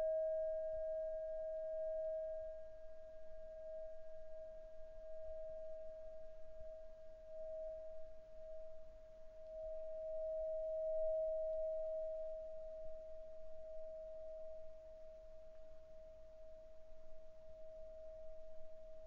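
Tibetan bell sounding a long, steady ringing tone on a single pitch that slowly swells and fades, with a fainter higher overtone that dies away about halfway through.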